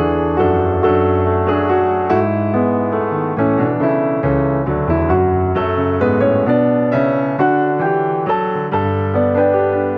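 Background music: a piano-like keyboard playing a steady, even stream of notes.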